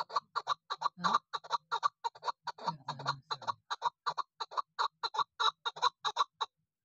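Female chukar partridge calling: a fast, even run of short clucking notes, about five or six a second, that stops near the end.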